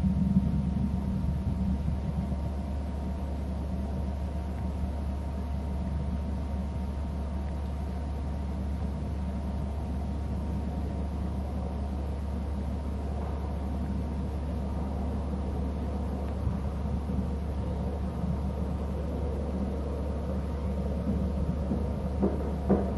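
Steady low rumble with a faint steady hum, and a few sharp knocks near the end.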